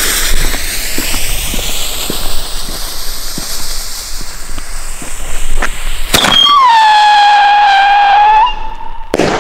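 Lesli Blitzies Tieftonheuler shell tube: the lit fuse hissing and sizzling for about six seconds, then a sharp crack as the shell launches. The climbing shell gives a low-pitched howl that dips slightly and holds for about two and a half seconds, and it bursts with a loud bang near the end.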